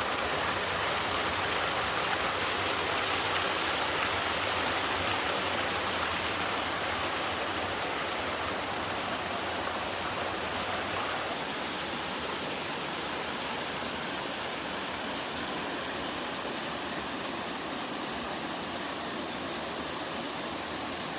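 Small two-tier mountain waterfall pouring into its stream: a steady rush of falling and splashing water, a little softer from about halfway.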